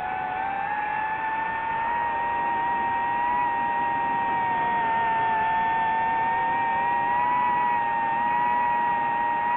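A drone's electric motors and propellers whining steadily in flight. Several close tones climb slightly in pitch about a second in, then hold level.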